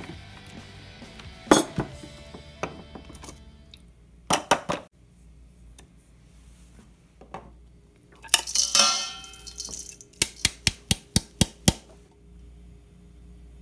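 Plastic mini food chopper being taken apart and handled, with scattered knocks and a brief clatter. Near the end comes a quick run of about seven sharp taps as the plastic chopper bowl is knocked against a metal mixing bowl to empty out ground pork-rind crumbs.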